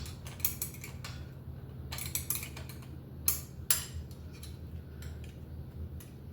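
Light metallic clicks and clinks of tools and brake hardware while a bicycle cantilever brake pad is being set in position. The clicks come irregularly, with two sharper ones a little past the middle, over a low steady hum.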